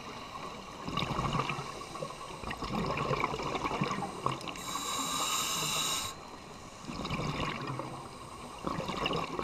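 Scuba diver breathing through a regulator underwater: bubbling exhalations, with one steady hissing inhale about halfway through that cuts off sharply.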